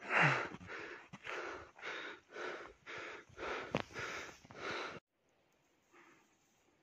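Footsteps crunching in fresh snow, about two a second, after a short voiced breath at the start. About five seconds in, the sound cuts off abruptly to near silence.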